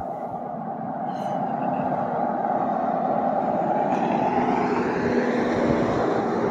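A car driving, with steady road and engine noise that grows louder as it picks up speed.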